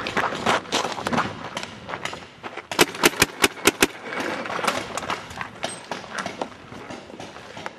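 Running footsteps, then about three seconds in a rapid string of about seven sharp gunshots within roughly a second, followed by quieter footsteps and knocks.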